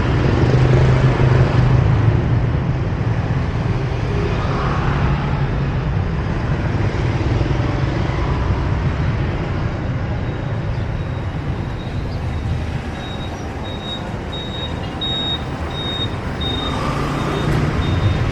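Busy city street traffic: a steady rumble of passing engines and tyres. In the second half a faint high-pitched beep repeats a little under twice a second for a few seconds.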